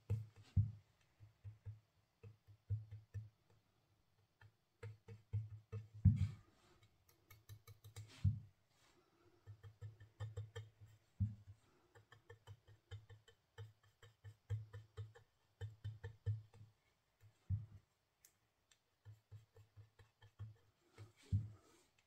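Soft, dull tapping of an ink blending brush being dabbed onto die-cut cardstock leaves and the ink pad. The taps come in irregular runs of several a second, with short pauses between runs.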